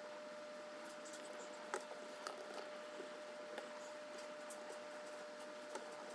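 A few soft, scattered computer-mouse clicks over a faint steady hum.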